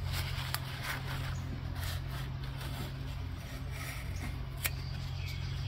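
Shop rag rubbing and wiping around the open valve-cover area of a small overhead-valve engine's cylinder head, with a few light clicks, over a steady low hum.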